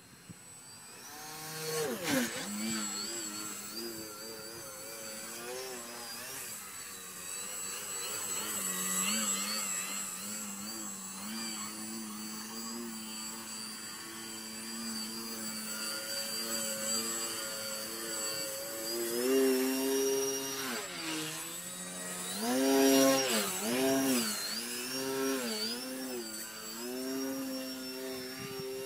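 RC Katana stunt plane's motor and propeller buzzing throughout. The pitch holds fairly steady through the middle, then rises and falls again and again with quick throttle changes in the last third, as in a hover.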